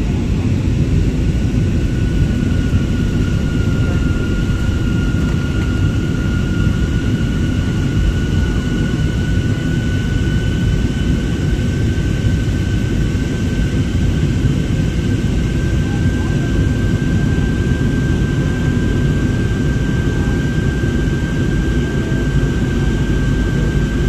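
Steady cabin noise inside an Airbus A320-family jet airliner climbing after takeoff: a deep rumble of engines and airflow, with a thin engine whine above it that slowly rises in pitch.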